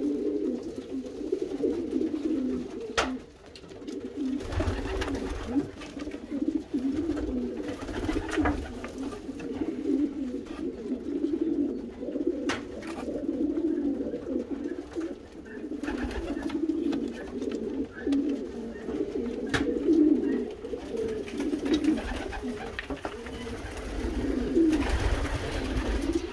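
Racing pigeon hen cooing on and on in a low, warbling tone, with a few sharp clicks. She is a hen guarding her young squab and is agitated.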